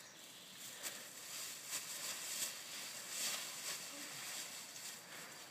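Faint rustling and crackling of dry fallen leaves being gathered up by hand and disturbed underfoot.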